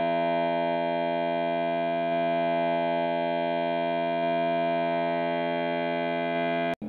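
Steady electronic test tone from a two-oscillator tone generator, two frequencies mixed into one held tone rich in overtones, driving an acoustic laser visualizer's pattern. It cuts off abruptly near the end.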